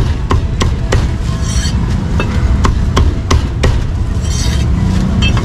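Cleaver chopping meat on a wooden chopping block: about ten sharp chops in quick runs, with a pause around the middle, over a steady low rumble.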